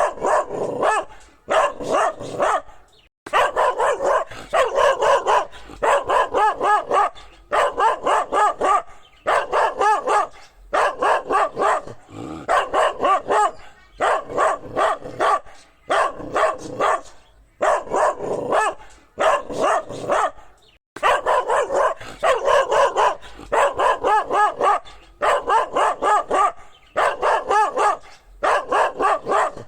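Dog barking over and over, in quick runs of several loud barks with brief pauses between the runs.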